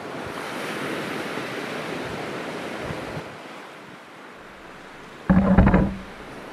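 Wind-driven Lake Superior waves washing against shoreline rocks: a steady rushing surf with wind, easing off after about three seconds. About five seconds in, a loud low rumbling burst lasting under a second.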